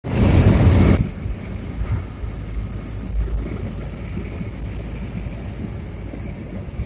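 Car driving on a paved road, heard from inside the cabin: a steady low rumble of engine and tyre noise. A loud rush of noise fills the first second.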